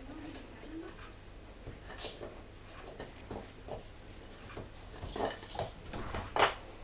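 A puppy playing with a wooden stick on a laminate floor: scattered clicks and knocks of the stick and its claws on the boards, getting louder and busier toward the end, with one sharp knock near the end.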